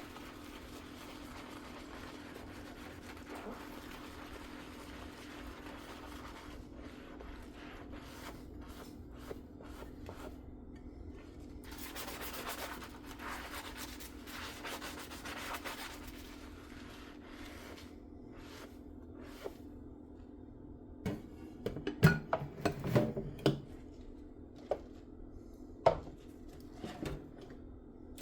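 Dishes being washed by hand: a sponge scrubbing and rubbing on a dish over a steady low hum, then dishes clattering against each other about 21 seconds in and one sharp clink near the end.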